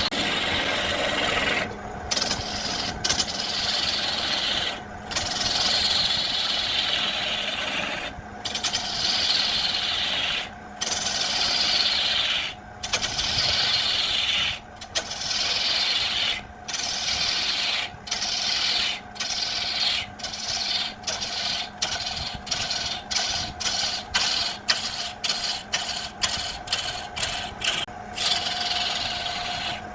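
A tool scraping against wood in repeated rasping strokes, each stroke separated by a brief pause; the strokes start long and grow shorter and quicker toward the end. A steady faint hum runs underneath.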